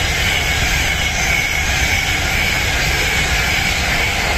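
Class 390 Pendolino electric train passing through the station at speed: a loud, steady rush of wheel and air noise with a high whine that slowly sinks in pitch.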